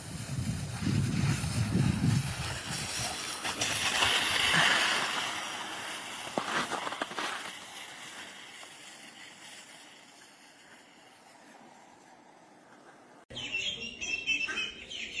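A dog's board sliding down packed snow: a steady scraping hiss, loudest in the first few seconds and then fading away. Near the end, ducklings peeping.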